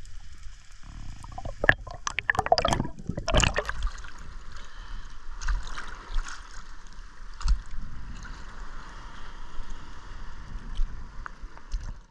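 Sea water splashing and bubbling as a spearfisher breaks the surface, loudest between about two and four seconds in, then the steady lapping and sloshing of small waves at the surface.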